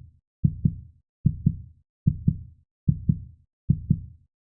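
Heartbeat sound effect: a low lub-dub double thump repeating evenly, a little more than once a second.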